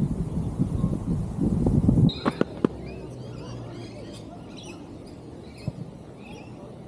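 Wind buffeting the microphone, which stops abruptly about two seconds in. A few sharp clicks follow, then birds chirping.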